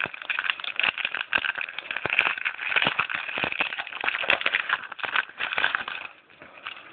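Crinkling and crackling of a trading card pack's wrapper being torn open and handled, a dense run of crackles that dies down about six seconds in.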